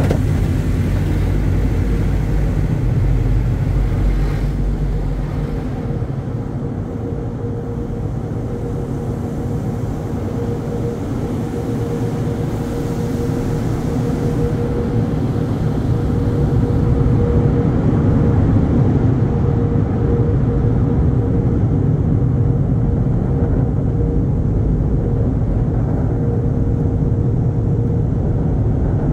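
Automatic tunnel car wash heard from inside a pickup truck's cab: a steady hissing rush of water jets and wash equipment over the windshield and body, with a constant hum. In the second half the hiss fades and the noise swells as the drying blowers take over.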